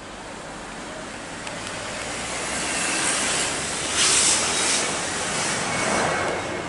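Jet engine roar of a Boeing 737 climbing out after takeoff: a broad rushing noise that grows louder over the first few seconds and peaks about four seconds in.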